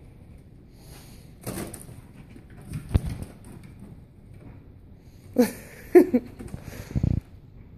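Foil helium balloon bumping and crinkling as a kitten drags it by its string and bats at it, with a kitten's paws scuffling on tile. Scattered knocks and rustles, the loudest a sharp knock about three seconds in and a cluster of knocks with a couple of short squeaks around five to six seconds in.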